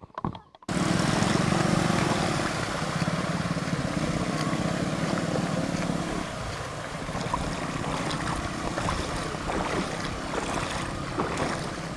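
A steady low engine drone mixed with rushing wind and water noise. It starts abruptly just under a second in and eases a little about halfway through.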